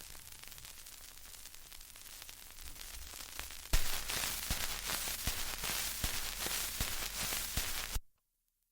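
Crackling hiss with scattered sharp pops. It is faint at first, turns suddenly louder about a third of the way in, then cuts off abruptly to dead silence near the end.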